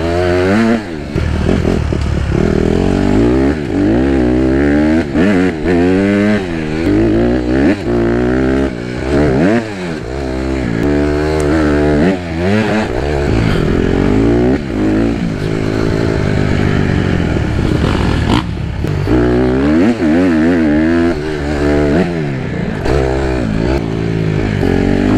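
Single-cylinder four-stroke motocross bike being ridden hard, its engine revving up and dropping back again and again every second or two through throttle and gear changes.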